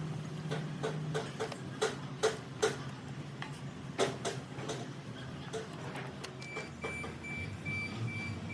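A series of sharp metallic clicks and knocks, like tools and parts handled on metal, over a low steady hum. Past the middle a high electronic beep starts repeating about twice a second.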